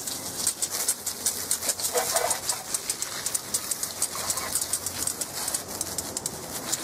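Garden hose spraying water onto a lawn mower's engine and deck, rinsing off foaming degreaser: a steady spattering hiss with crackling splashes. A dove coos in the background about two seconds in and again near four seconds.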